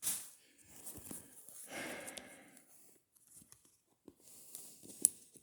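Faint rustling and scraping of a phone's cardboard box and packaging being handled and opened, with a sharp click about five seconds in.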